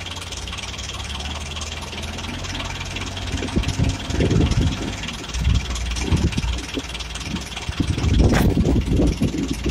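Backhoe loader's diesel engine digging manure: steady at first, then working harder in uneven surges from about three seconds in, loudest near the end. A single sharp knock comes near the end.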